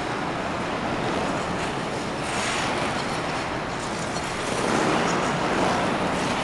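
Ice skate blades of a skating pair hissing and scraping on the ice over a steady rink noise, swelling about two and a half seconds in and again around five seconds.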